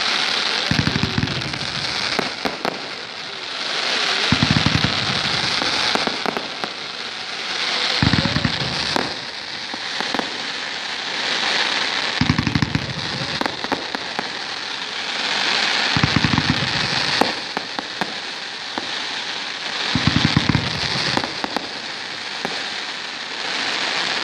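Fireworks crackling: a dense, rain-like sizzle of many small pops from crackling stars, swelling and fading every few seconds. A low thud comes roughly every four seconds.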